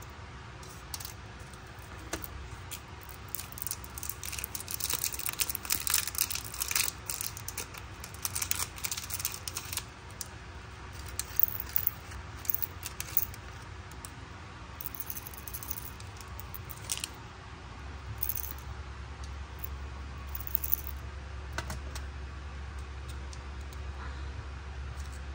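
Tiny plastic pieces of a Miniverse miniature toy kitchen set clicking, tapping and clinking as fingers handle a small clear cup and bottle, in a busy run of clicks, then scattered ones.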